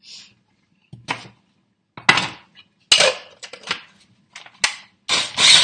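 Several sharp plastic knocks and clatters as a mini food processor's bowl and lid are handled, then about five seconds in its motor starts with a loud steady whir, chopping small onions.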